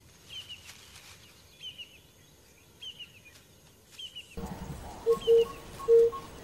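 Wild birds calling: short, falling high chirps about once a second. About two-thirds of the way through the sound changes, and a lower call at one steady pitch, repeated in short pulses, grows loud.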